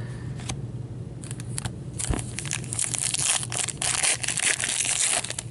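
A hockey card pack wrapper being torn open and crinkled by hand, a dense crackling that starts about two seconds in and stops just before the end. It is preceded by a few light clicks of cards being handled.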